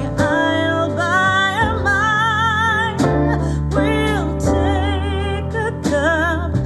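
Blitzwolf BW-AS2 2.1 Bluetooth speaker playing a song, heard through a camera-mounted microphone: a singing voice with vibrato over held bass notes.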